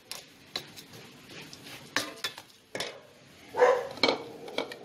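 A spatula stirring dry rolled oats and sugar in a stainless steel bowl: scattered taps and scrapes against the metal. A short, louder sound stands out about three and a half seconds in.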